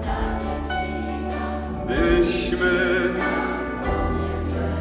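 Live band playing a Polish Christmas carol refrain, with a lead singer and the audience singing along over a steady bass, in a church.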